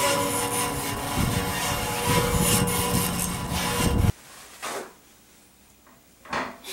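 Rough, rushing noise of wind on the microphone, cutting off abruptly about four seconds in to quiet room tone with two brief soft sounds.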